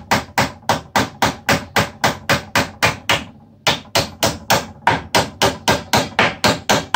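Small hammer tapping a small nail into the thin back panel of a wooden cabinet, driving it in to refasten the panel. It is a quick, even run of sharp taps, about three to four a second, with a brief pause about three seconds in.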